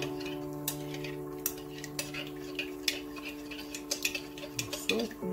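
A spoon stirring cornstarch into cold water in a Fire-King glass measuring cup, clinking against the glass in quick, irregular clicks.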